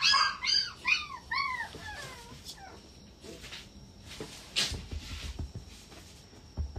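Shiba Inu puppy whimpering: a quick run of about five short, high whines, each rising and falling in pitch, over the first two seconds, then fading out. Later comes a brief rustle and a few soft low bumps of the puppy scuffling.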